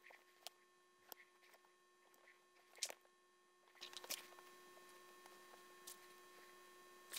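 Near silence: a faint steady hum with scattered light clicks and taps, the sharpest just before three seconds in and another around four seconds.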